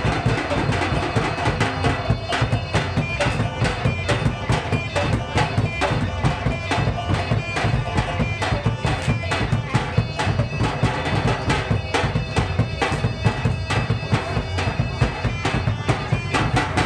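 Traditional Minangkabau silek accompaniment music: rapid, continuous drumming with a steady held wind-instrument melody over it.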